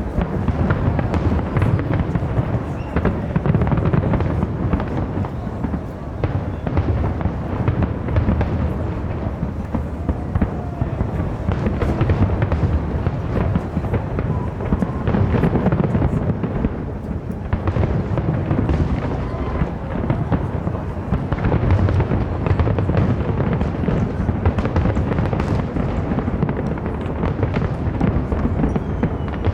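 Fireworks going off continuously, a dense run of bangs and crackles in quick succession with deep low booms underneath.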